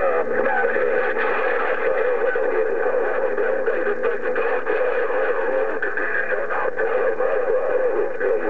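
CB radio receiving on the 11-meter band: a distant station coming in through heavy static, a garbled, warbling signal that cuts in suddenly at the start and stays loud and unintelligible throughout.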